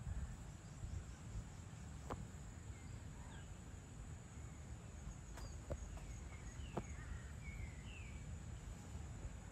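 Faint natural ambience: small birds chirping a few times from about three seconds in, over a steady high insect hum and a low rumble, with a few sharp clicks.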